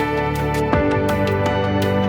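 Soft new-age-style instrumental background music, with sustained notes and a change of chord about three quarters of a second in.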